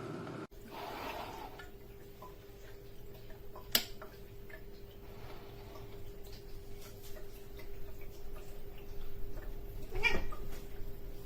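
Glass electric kettle heating water: a steady hum under scattered faint ticks and crackles, with one sharp click about four seconds in and a short, louder rush of noise near the end.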